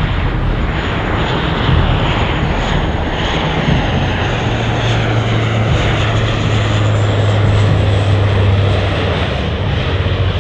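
Lockheed C-130J Super Hercules's four Rolls-Royce AE 2100 turboprop engines and six-bladed propellers running loud on a low pass. A deep propeller drone swells strongly in the middle, with a thin high turbine whine above it.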